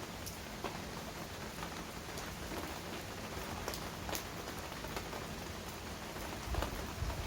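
Heavy rain falling steadily, with separate drops ticking on hard surfaces. A low rumble comes in near the end.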